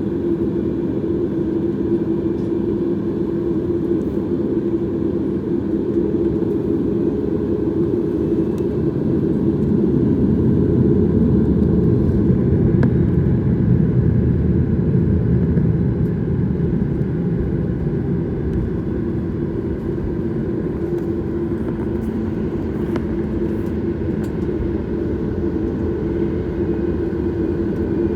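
Steady cabin noise inside a Boeing 737 MAX: a low rumble of engines and airflow with a few steady hum tones, growing a little louder about halfway through, then easing back.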